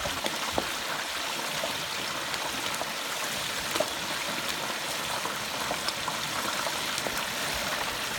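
Hot oil in a propane turkey fryer sizzling steadily around a whole turkey, with many scattered small pops and crackles of spattering oil and one sharper pop near the middle.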